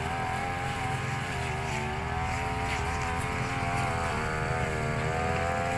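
A small engine running steadily, its pitch wavering slightly.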